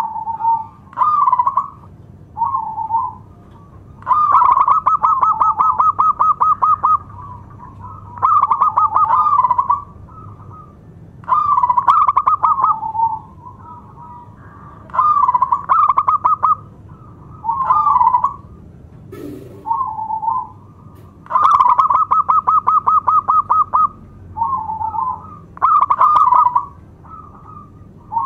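Zebra dove (perkutut) singing its cooing song: short phrases of quick, rolling coos repeated every couple of seconds, two of them drawn out into long fast trills. A single click sounds about two-thirds of the way in.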